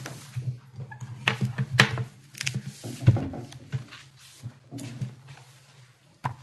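Papers rustling and being shuffled on a table, with a string of sharp knocks and bumps close to the table microphones, over a low hum. The knocks are most frequent in the first half and die away toward the end.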